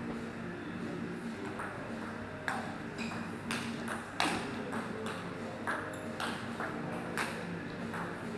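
Table tennis rally: the ball clicking sharply off the bats and the table, starting about a second and a half in and going on at roughly two hits a second.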